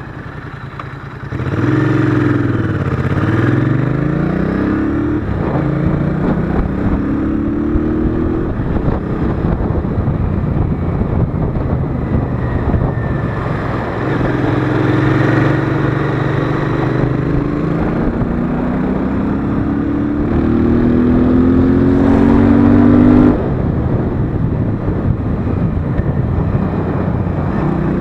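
Royal Enfield Interceptor 650's parallel-twin engine heard from the bike while riding. It picks up loudly about a second in, dips and then climbs in pitch in several rising steps, holds a steady note, climbs again and drops off sharply near the end.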